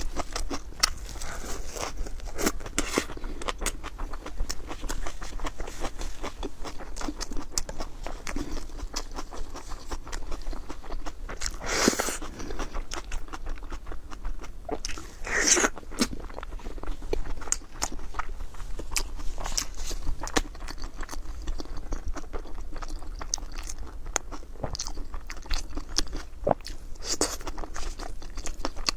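A person eating close to the microphone: steady chewing and crunching made of many small wet clicks, with a louder crunching bite about twelve seconds in and another about fifteen and a half seconds in.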